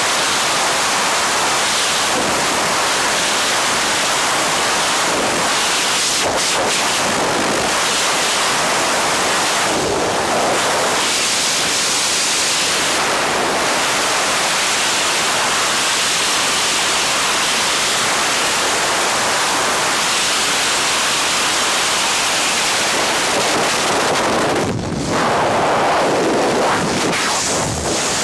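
Loud, steady rush of freefall wind buffeting a helmet-mounted camera's microphone, with a brief dip about 25 seconds in.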